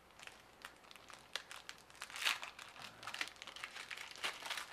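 Foil hockey card pack wrappers crinkling in gloved hands as the packs are opened, a quick run of crackles with louder ones about two seconds in and near the end.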